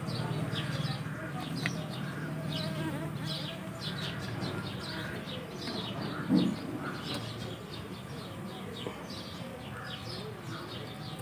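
Small birds chirping over and over in quick short notes, with a low steady hum in the first half and a brief louder low sound about six seconds in.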